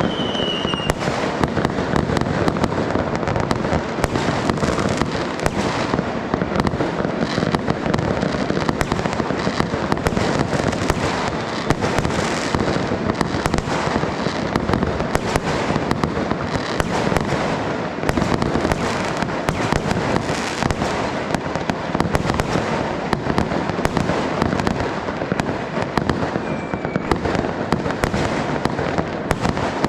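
Dense, continuous barrage of fireworks: a steady crackle of many overlapping bangs and pops with no let-up. A brief high whistle sounds near the start and another near the end.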